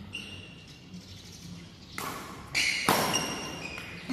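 Badminton rally in a hall: sharp hits of racket on shuttlecock and thuds on the court, a quick cluster of them from about two seconds in, the loudest near three seconds.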